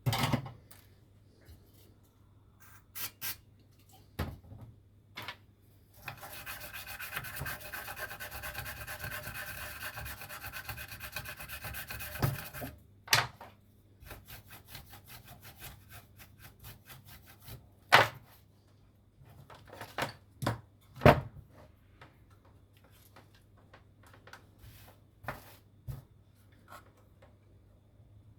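Hand work on a circuit board: a steady scraping rub for about six seconds near the middle, then rapid light scrubbing. Scattered sharp clicks and taps of tools are heard, with the loudest snaps about 18 and 21 seconds in, over a faint low electrical hum.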